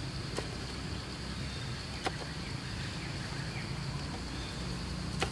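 Outdoor ambience: a steady low hum under a steady high hiss, with three short sharp clicks spread through it.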